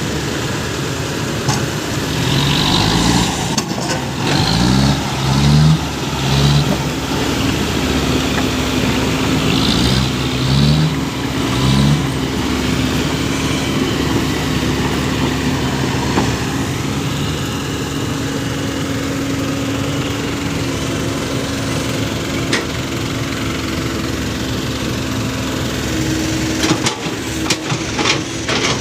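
Small six-wheel truck's engine revved in a series of short rising bursts during the first part, then running at a steady idle.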